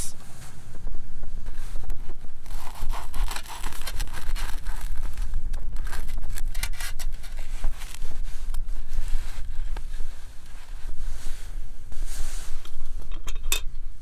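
An Opinel folding knife sawing through a crisp toasted sandwich on a wooden board, making repeated crunching, scraping strokes over a steady low rumble. A sharp click comes near the end.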